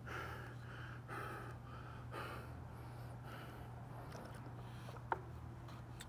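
Heavy breathing of a boxer catching his breath after a round of heavy bag work, quick breaths at first and then slower. A single sharp click about five seconds in.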